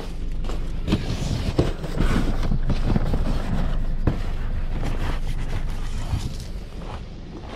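Cardboard boxes being pushed and shuffled onto a car's back seat: rubbing and scuffing noise with a string of knocks, loudest in the middle and easing off near the end.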